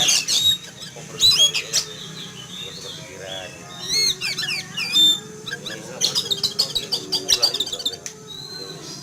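Oriental magpie-robin (kacer) singing loudly in short runs of rapid, gliding whistled notes with brief pauses between them.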